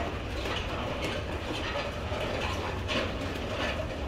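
Footsteps on a carpeted floor at a walking pace, over a steady low rumble.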